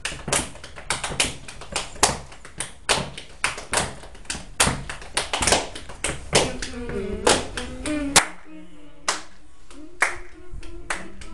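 Body percussion: hands clapping and slapping in a quick rhythm of sharp strokes. From about six seconds in, voices come in over the strokes.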